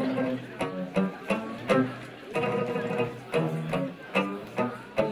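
Instrumental passage from a folk string band: banjo, guitar and double bass plucking notes over a bass line, with a regular beat.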